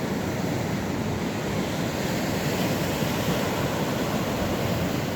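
Heavy sea surf breaking against coastal rocks, a steady rush of churning water without any single standout crash.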